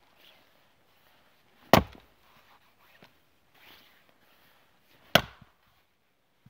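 Two heavy axe blows into a round of firewood, about three and a half seconds apart, each a sharp chop. The round does not split: the blade bites in and stays stuck in the wood.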